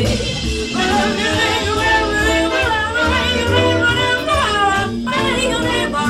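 Music with sung vocals over a steady bass beat.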